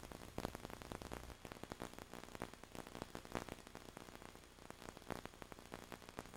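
Faint crackle and hiss with a low steady hum: background noise of an old VHS tape recording, with no speech or music.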